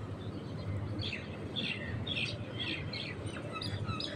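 Small birds chirping: a quick run of short, high, falling chirps starting about a second in, over a steady low hum.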